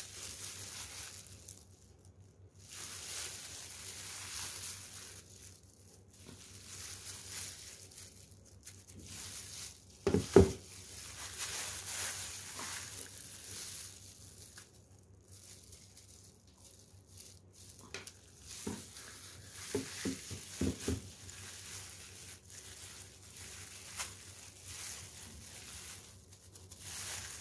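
Thin plastic disposable gloves crinkling as they handle a plastic laser toner cartridge, in stretches that come and go. A sharp knock about ten seconds in, from the cartridge's plastic body, is the loudest sound, and a few lighter clicks follow a little later.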